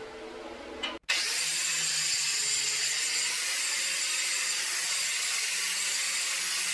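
Angle grinder running its disc against the end of a metal pipe held in a vise: a steady, loud grinding hiss that starts abruptly about a second in.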